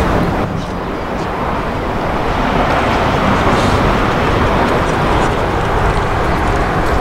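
Airbus A380-841's Rolls-Royce Trent 970 jet engines during the landing rollout: a steady, loud rushing roar with a low rumble. It dips slightly about half a second in, then builds again.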